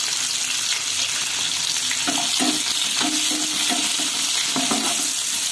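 Sliced onions sizzling in hot mustard oil in a pan, with a spatula stirring them from about two seconds in.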